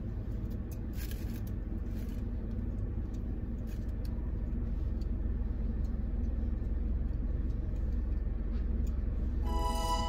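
Steady low rumble of a car driving, heard from inside the cabin, with a few faint clicks. Light chiming music like a glockenspiel comes in near the end.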